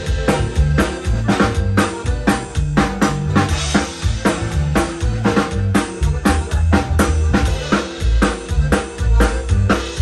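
Live band music: a drum kit keeps a steady, even beat on bass drum and snare over a low, stepping bass line and other instruments.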